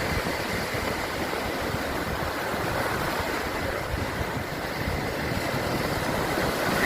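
Steady sea surf washing on the shore, with wind rumbling on the microphone.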